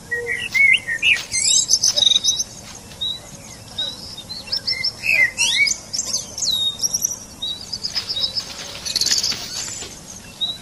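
Several wild birds calling together: a short high note repeats about twice a second under bursts of quick chirps and rising and falling whistles.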